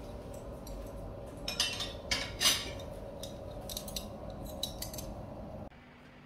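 Tableware clinking on a dining table: a run of light clicks and knocks of dishes and cutlery, the loudest about two and a half seconds in, over a steady low room hum that cuts off near the end.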